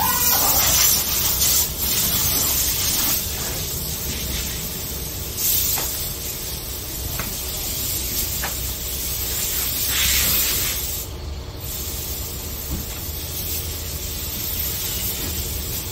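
Hissing bursts of a high-pressure spray gun at a car wash, loudest in the first couple of seconds and again near the middle, over a steady low machine hum.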